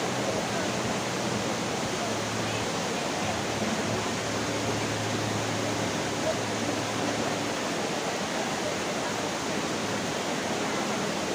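Steady rush of waterfall water, an even hiss with no breaks.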